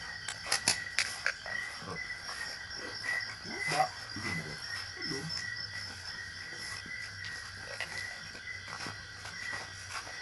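A steady chorus of insects chirring in two high-pitched bands, with scattered light clicks and knocks.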